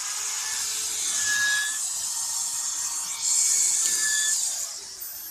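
Handheld electric power saw cutting through a PVC door-frame profile: a loud, high-pitched cutting noise with a brief dip about three seconds in. Near the end the cut eases off and the motor's whine begins to fall away.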